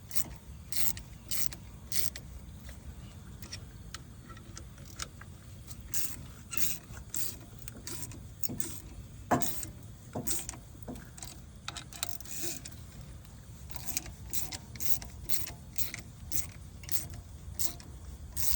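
Small ratchet clicking in short strokes, sharp metallic ticks in quick runs, as it turns a brake pad spreader to push caliper pistons back. A low steady rumble runs underneath.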